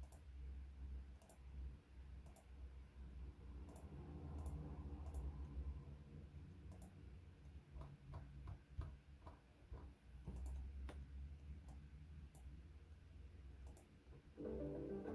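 Faint, irregular clicks, a dozen or so spaced unevenly, over a low steady hum; music starts near the end.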